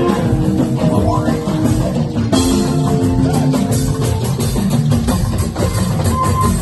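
Instrumental music with a steady beat, loud and continuous; the sound turns brighter about two seconds in.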